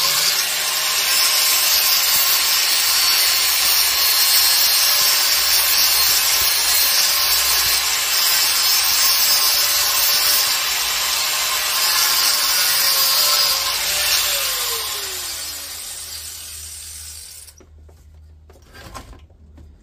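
Angle grinder running with its disc ground against a metal monitor-stand part, a spark test to tell the metal. About fourteen seconds in it is switched off and its whine falls away as the disc spins down to a stop.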